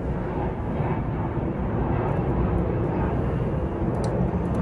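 Steady low rumble of background noise, with a faint click or two about four seconds in.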